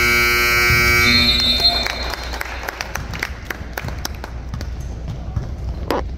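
Gym scoreboard buzzer sounding one steady, loud tone that cuts off about a second and a half in, followed by a basketball bouncing on the court and general gym noise.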